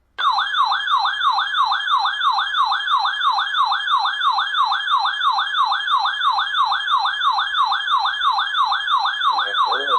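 A weather radio receiver's alert siren sounding for a severe thunderstorm warning. It is a loud warbling tone that sweeps up and down about three times a second, starting abruptly; near the end a lower warbling tone joins it.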